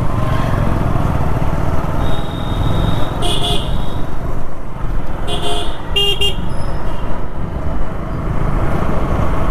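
Steady wind and motorcycle engine rumble while riding through city traffic. Vehicle horns honk three short times between about three and six seconds in, the last two close together.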